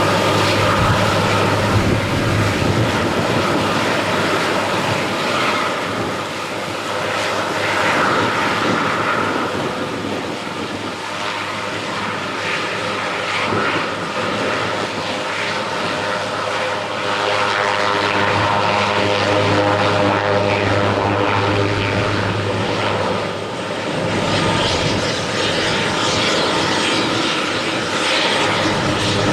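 Eurocopter AS332L1 Super Puma helicopter running, its twin turbine engines and rotors making a continuous loud drone with a steady low hum and several steady whining tones; the loudness swells and eases a little.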